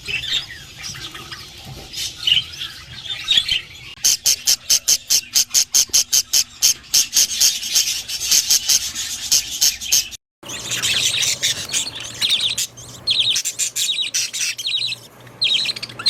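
Budgerigars chirping and chattering. In the middle comes a run of rapid, evenly repeated sharp calls, about three a second, and the sound breaks off briefly about ten seconds in before the chirping resumes.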